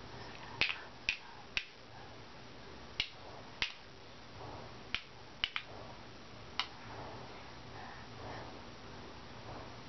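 A baby clapping two hollow plastic stacking blocks together: about ten sharp clacks at uneven intervals, a couple of them in quick pairs, stopping about two-thirds of the way through.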